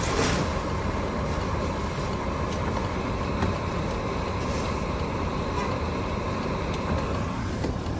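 Steady rumble of a Land Rover running, heard from inside its cabin, with a few faint clicks over it.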